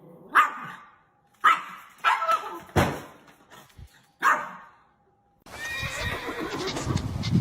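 An animal calling: five short, loud cries about a second apart, then a switch to a steady noisy background about five and a half seconds in.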